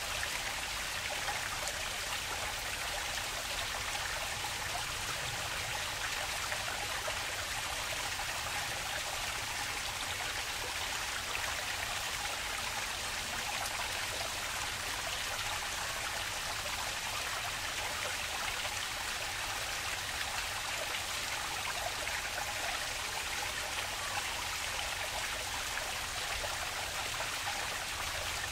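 Flowing water in a park stream, a steady splashing and trickling that doesn't change.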